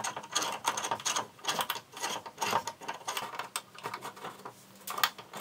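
Allen key turning a screw to bolt a steel linear rail onto a CNC 3018's gantry upright: rapid, irregular metallic clicks and rattles that thin out after about four seconds, with a few single clicks near the end.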